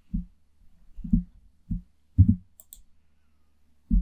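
Computer keyboard and mouse clicks: about five short, dull clicks spread unevenly, as keys such as Alt and X are pressed while working in Photoshop.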